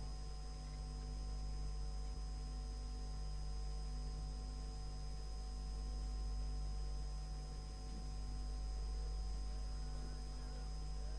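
Steady electrical mains hum with background hiss from the recording, several fixed tones held without change.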